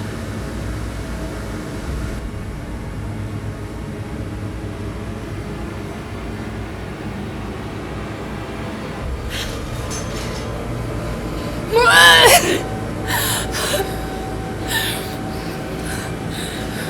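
Steady low hum, then about twelve seconds in a woman's short, high scream, followed by a few breathy gasps.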